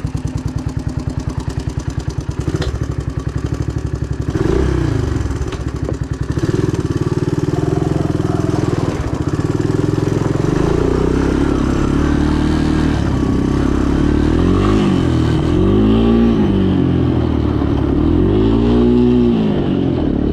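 Three-wheeler ATV engine idling with an even pulse, then pulling away and revving up and down repeatedly, its pitch rising and falling several times near the end.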